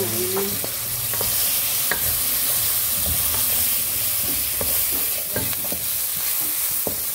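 Chicken pieces frying in hot oil with onions and spices in a metal pan, a steady sizzle, while a wooden spatula stirs them and knocks against the pan now and then.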